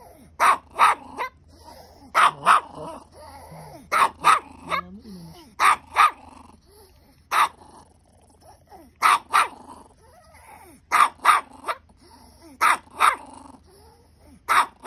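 A small shaggy dog barking sharply in quick pairs and threes, a new burst every second or two.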